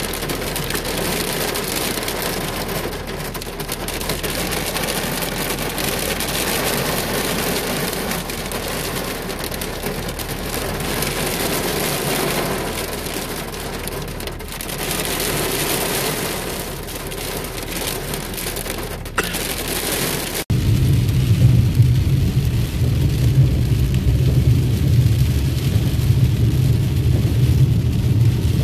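Heavy rain drumming on a car's windshield and roof, heard from inside the car. About two-thirds of the way through it cuts suddenly to a louder, low rumble of the car driving on a wet road.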